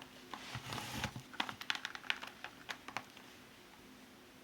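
Light clicks and taps of a plastic scale model car being handled and turned, dying away about three seconds in.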